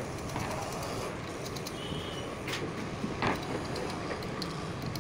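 Steady background noise, with two short clicks around the middle as metal wire lugs and pliers are handled at an electric motor's terminal block.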